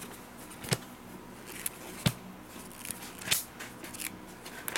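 Thin pages of a thick printed catalogue being flipped by hand one after another: a crisp paper flick or slap about every second, with light rustling between.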